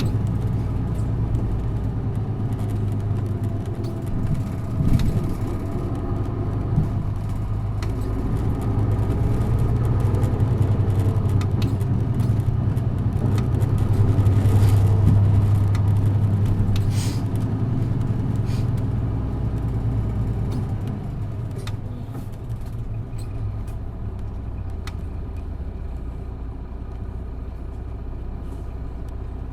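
Isuzu Erga PJ-LV234N1 city bus's six-cylinder diesel engine running under way, heard from inside the cabin. The drone builds in loudness to about halfway, then eases off and quietens after about twenty seconds, with a couple of short knocks early on.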